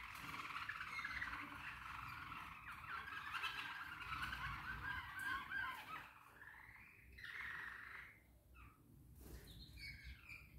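Small caged pet birds chirping and twittering: a fast run of short gliding notes for the first six seconds, then a few longer, sparser calls.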